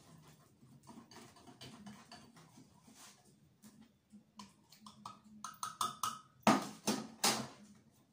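Wire whisk beating an egg-white and lemon glaze in a ceramic bowl, the wires clicking and scraping against the bowl. A quick run of ringing taps comes about five and a half seconds in, then two louder knocks about six and a half and seven seconds in.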